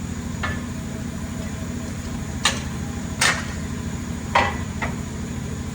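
Steady low hum of a CNC milling machine, with about five sharp metallic knocks and clinks from tooling being handled. Some knocks ring briefly, and the loudest comes past the middle.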